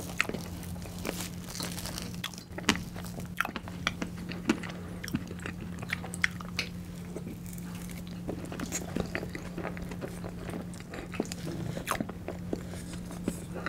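Close-miked mouth sounds of eating soft tiramisu cake: chewing and lip smacks with many short, sharp clicks, over a steady low hum.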